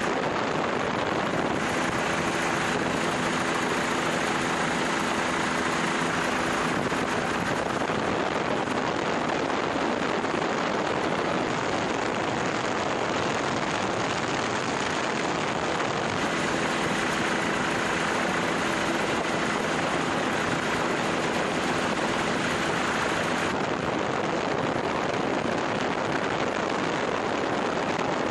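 Helicopter in flight: steady engine and rotor noise, with a faint low hum that comes in twice for several seconds.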